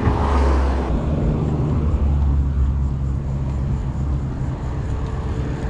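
Wind rumbling on the microphone while cycling along a road, with motor traffic running steadily alongside.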